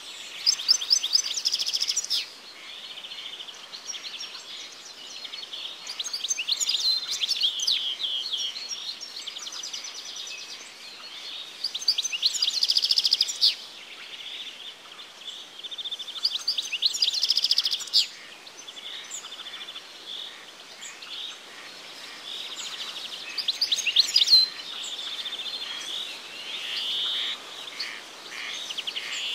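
A songbird repeats a short, quick trilling song phrase about every five seconds, six times in all, with softer chirps from other birds between the phrases.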